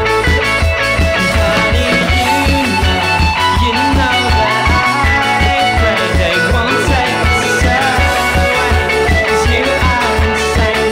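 Rock music soundtrack: guitar over a steady drum beat.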